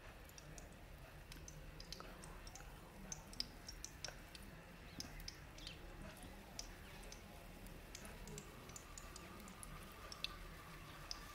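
Faint, irregular crackles and ticks, a few a second, from a pan of bread shallow-frying in mustard oil over a wood fire in a clay chulha.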